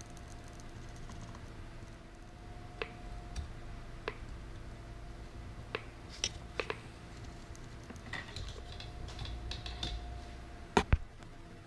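Laparoscopic needle holders clicking as they are worked to tie a suture knot: scattered sharp metallic clicks, a patch of softer ticking, then a loud double click near the end, over a faint steady hum.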